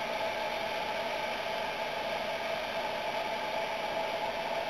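Steady outdoor background hiss with a faint hum. No distinct events.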